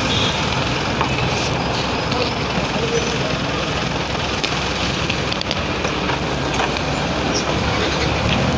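Steady street traffic noise, with motorcycle and tricycle engines running close by.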